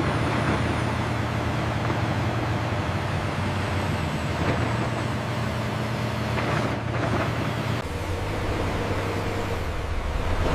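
Heavy diesel engine of earthmoving equipment running steadily under a rumble of working noise; the engine note shifts lower about eight seconds in.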